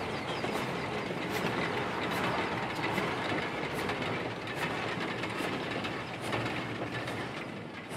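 Narrow-gauge open wagons rolling past, their wheels clicking over the rail joints a little more than once a second over a steady rumble. The sound fades near the end as the last vehicle goes by.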